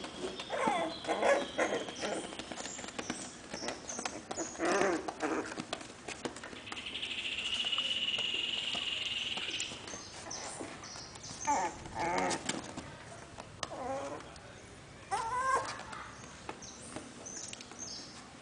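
Young Jack Russell Terrier puppies whimpering and squeaking in several short bouts of rising and falling whines. A steady high-pitched tone runs for about three seconds near the middle.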